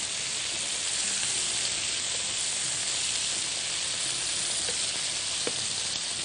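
Floured beef pieces searing in butter in a hot pan: a steady sizzle and spatter, with a faint click of the fork on the pan near the end as the pieces are turned. The sizzle is the sign that the meat is browning properly and has not released its water.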